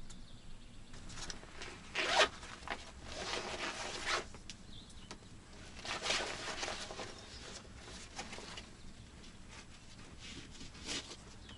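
A rucksack being opened and unpacked: zip pulls and the rustle of its fabric and contents, in several short bursts.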